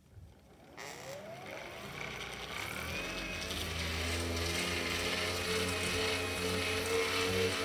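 A motor whine rising in pitch as the 140 kV motor, used as a generator on the bike trainer, spins up under pedalling. From about three seconds in, background music with held notes fades in and grows louder, becoming the main sound.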